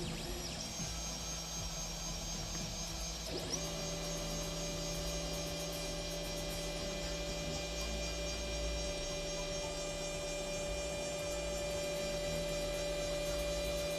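3D printer running with a steady electric hum of several held tones from its motors; the pitches shift at about half a second and again at about three and a half seconds in.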